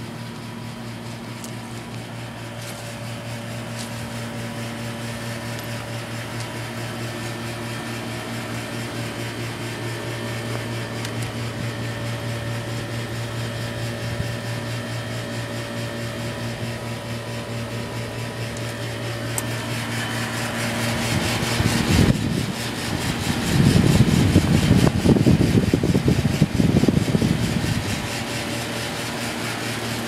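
Carrier central air conditioner outdoor unit running: a steady low compressor hum under the whoosh of the condenser fan. About two-thirds of the way in, a louder rush of air buffets the microphone for several seconds, then settles back.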